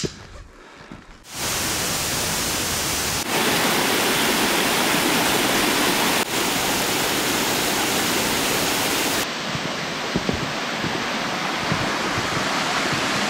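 Mountain stream water rushing over rocks, a loud steady rush that sets in abruptly about a second in. It shifts suddenly in level and tone three times, around three, six and nine seconds in.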